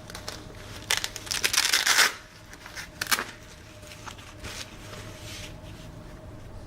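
Rustling and handling noise: a loud rustle about a second in that lasts about a second, then a sharp click about three seconds in, over a faint steady hum.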